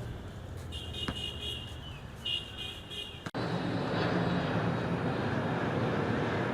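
Airliner engine noise on approach: a steady rushing that starts abruptly about three seconds in, after a quieter stretch with a click and a few short high tones.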